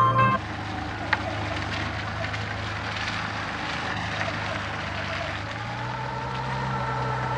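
A car's engine running at night, its steady hum growing stronger about halfway through as the car comes on; a single click about a second in.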